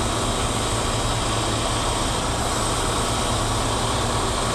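Heavy diesel wrecker engine idling: a steady low hum under an even hiss, unchanging throughout.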